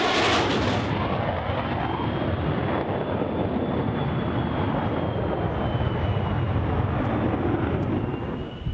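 Jet noise from a low-flying F-35A's single F135 afterburning turbofan, loud as it passes. About a second in, the noise gives way abruptly to a steadier deep rumble with a faint thin whistle over it, as the jet climbs away.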